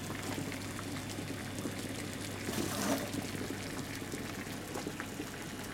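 Water at a full rolling boil in a small stainless-steel saucepan with an egg in it: a steady bubbling that swells a little about halfway through.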